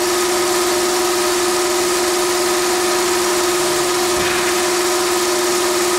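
Sugar coating machine running: a steady motor hum with one strong tone, over an even hiss of moving air.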